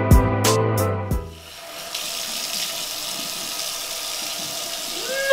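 Upbeat music with a steady beat cuts off about a second in, giving way to water running steadily from a bathroom sink tap as a man washes his face under it.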